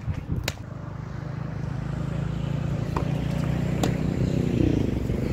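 A road vehicle's engine running close by, growing louder and rising in pitch near the end as it pulls away. Over it come a few sharp tennis ball strikes off racket strings during the rally.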